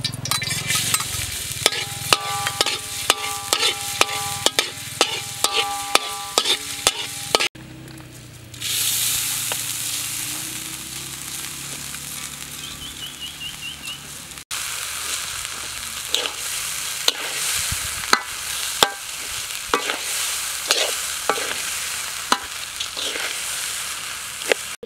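Metal spatula scraping and clicking against a thin metal wok over hot oil, the wok ringing with each strike. From about nine seconds in, a steady sizzle of rice frying in hot oil, with the spatula scraping and tapping as the rice is stir-fried.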